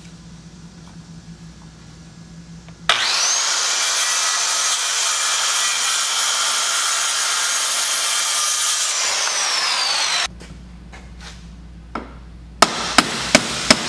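Corded circular saw starting about three seconds in with a rising whine, cutting through a pine 2x4, then its motor winding down with a falling whine. Near the end, a few sharp hammer blows driving nails into the board, about two a second.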